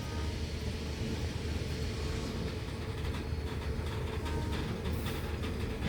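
Heavily loaded coal wagons of a departing freight train rolling over the rails: a steady low rumble with rattling and brief, faint metallic squeaks.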